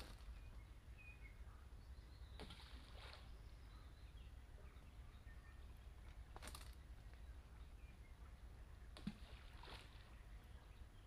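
Near silence under water: a low, steady muffled rumble with a few faint short taps, one of them with a soft low thump.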